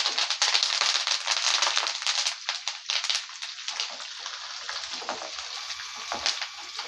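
Curry leaves sizzling and crackling in hot oil with mustard seeds, urad dal and dried red chillies, as a tempering is fried in a pan. The spattering is loudest at first and settles to a lighter sizzle after two or three seconds.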